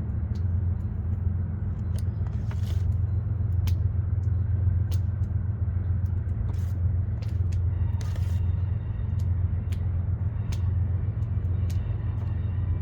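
Train rumbling steadily in the background, with scattered light clicks and taps over it.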